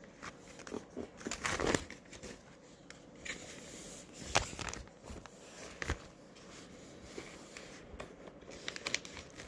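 Plastic vacuum-sealer bag material being handled: scattered crinkling and light clicks.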